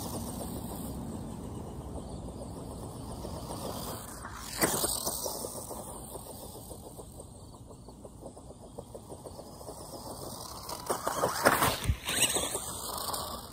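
Tamiya Grasshopper II RC buggy with a 23-turn electric motor driving over grass, its motor and gears whining and the tyres brushing through the grass; it gets louder about four and a half seconds in and loudest near the end as it comes close.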